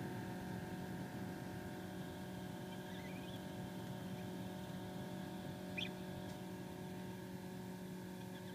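Steady electrical hum of a small egg incubator's fan and heater. About three seconds in there is a faint short rising peep, and near six seconds a brief high peep, from the hatching gosling.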